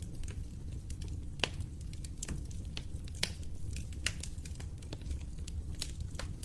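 Wood fire crackling, with irregular sharp pops and snaps over a steady low rumble; a few louder pops stand out about a second and a half, three seconds and four seconds in.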